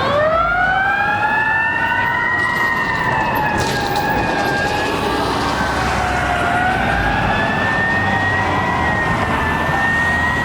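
Fire apparatus sirens sounding together, a mechanical Q siren and an electronic wail. The pitch sweeps sharply up near the start and then rises and falls slowly.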